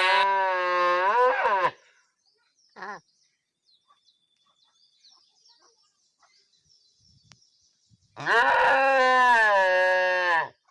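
Cow mooing: a long, wavering moo that ends just under two seconds in, a brief call about a second later, and a second long moo of about two and a half seconds near the end.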